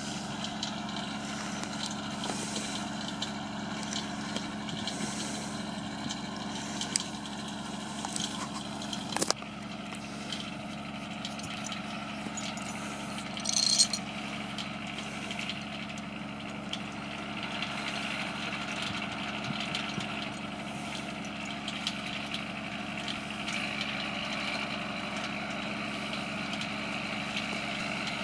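A vehicle engine idling steadily, with a sharp knock about nine seconds in and a brief louder noise near fourteen seconds.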